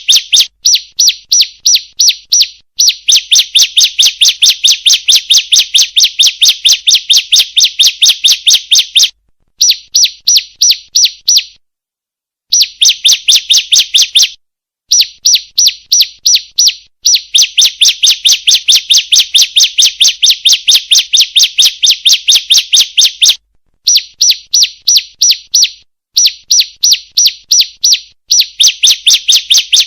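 Female ciblek (prinia) calling: fast runs of short, high chirping notes, several a second, broken by brief pauses of about half a second to a second.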